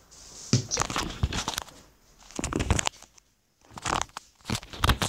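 Plastic wrapping of an L.O.L. Surprise toy ball being torn open along its zip strip, crinkling and tearing in about four bursts.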